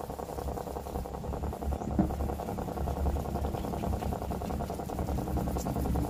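A small engine running steadily with a rapid, even pulse, and one sharp click about two seconds in.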